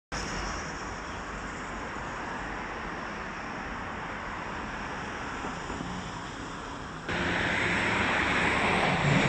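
Steady outdoor traffic noise by a road. It jumps louder and brighter at a cut about seven seconds in.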